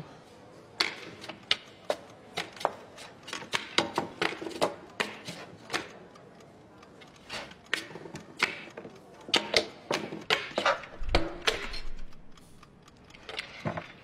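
Quick, uneven wooden clicks and taps on a chessboard rigged into a drum kit, imitating chess pieces being set down in a fast game, with a low thump near the end.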